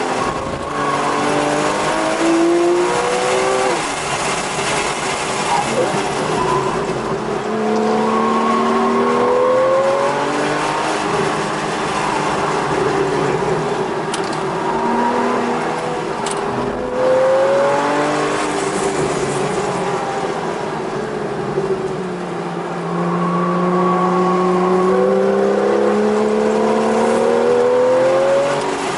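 Porsche 911 GTS (991.1) naturally aspirated 3.8-litre flat-six heard from inside the cabin, accelerating and shifting. The engine pitch climbs repeatedly and drops back, with a long climb late on, over road and wind noise.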